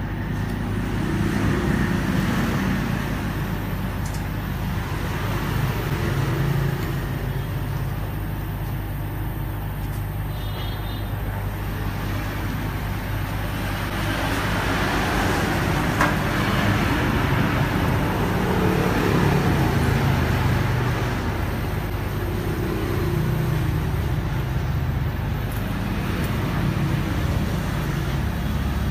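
Steady road-traffic noise, swelling and fading every few seconds as vehicles pass, over a constant low hum.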